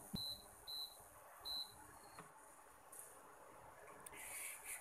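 Portable induction cooktop's control panel beeping as its touch buttons are pressed: three short, high-pitched beeps in the first two seconds, about half a second to a second apart.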